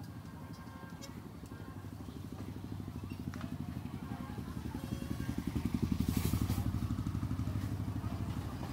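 A small engine running at low revs with a rapid, even pulse, growing louder to its loudest about two-thirds of the way through, then easing off.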